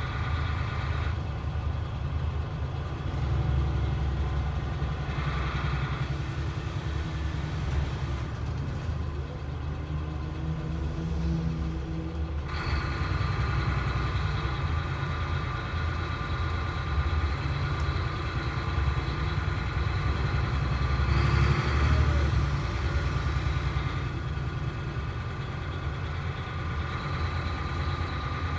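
Inside the cabin of a DAF SB4000 bus with a Jonckheere body under way: steady diesel engine and road rumble, with a steady high whine that joins in about halfway through.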